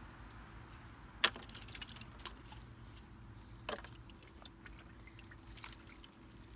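Faint handling of a wet seine net as crawdads are picked out of it by hand: a few sharp clicks, about a second in, near the middle and near the end, over light dripping and trickling of water.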